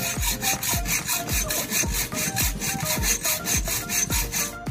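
Hacksaw cutting a thin metal rod in steady back-and-forth strokes, over background music with a steady bass beat.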